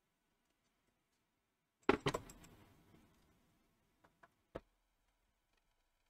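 A short clatter of hard objects knocking on a workbench about two seconds in, then three light clicks a little later. This is hand-tool and plastic-case handling as a screwdriver is picked up and set to a screw on a multimeter's back case.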